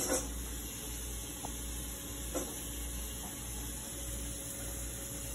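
Steady low hiss with a faint low hum underneath, broken only by two faint light ticks.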